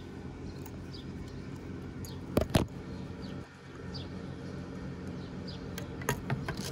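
Sharp double click about two and a half seconds in and a smaller click near the end as the solar panel's cable is connected to the power bank, over a steady low hum, with faint bird chirps.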